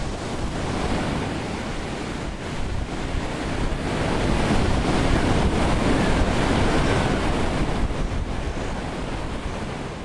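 Hurricane wind sound effect: a loud, steady rushing storm noise that swells a little in the middle.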